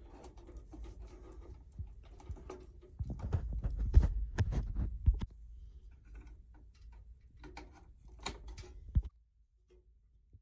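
Hands handling hardware: a run of small clicks, knocks and rustles, with heavier bumps about three to five seconds in, stopping suddenly near the end.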